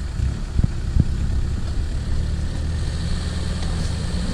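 Off-road vehicle engine idling steadily, with two short knocks about half a second and a second in.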